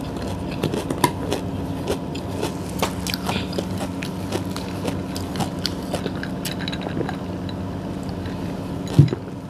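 Close-miked chewing and biting, with many small crunches and mouth clicks over a steady low hum. About nine seconds in there is one loud thump, the glass of iced water being set down on the table.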